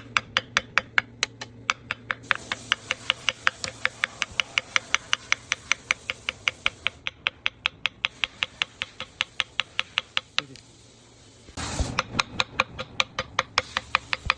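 Rapid, evenly spaced sharp clicking, about four or five clicks a second, that stops for a moment near the end and then starts again after a short rushing burst.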